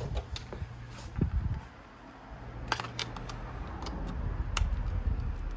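Scattered sharp clicks and scrapes of a tool prying at a small circuit board stuck inside a dismantled iMac, over a steady low hum.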